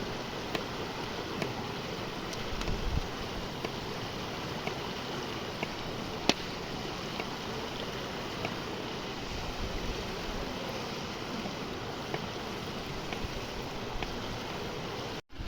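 Open campfire crackling, sparse sharp pops over a steady rushing hiss, one pop louder about six seconds in.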